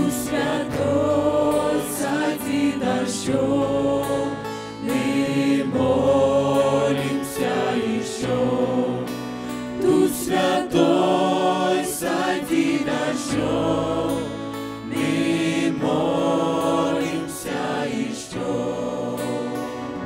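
Mixed youth choir of girls and boys singing a Russian-language Christian song into microphones, several voices together in sustained phrases.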